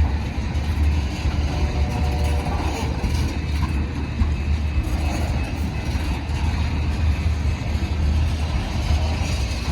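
Freight train with diesel locomotives running, a steady low rumble.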